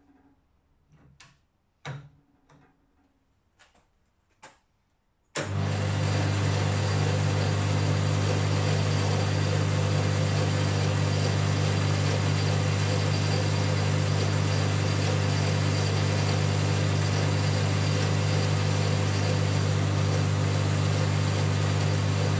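A few sharp clicks of the lathe's levers and handles being set. Then about five seconds in, the restored 1963 Boxford AUD lathe's electric motor and drive start all at once and run with a steady, even hum, with no clunks or knocks, on a test run.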